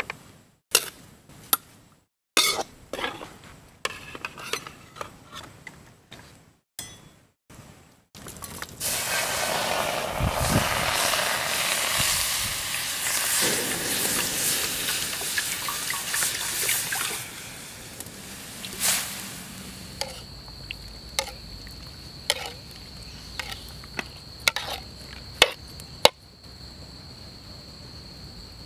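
Metal spatula scraping and clinking against a steel wok while greens are stir-fried, in short bursts of clicks and knocks. Then comes a loud, steady sizzling hiss from the hot wok for several seconds. After that it settles to a quieter background with occasional clinks, and crickets trill steadily through the last part.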